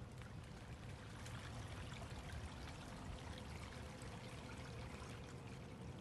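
Small stream flowing and trickling steadily, with many fine little splashes.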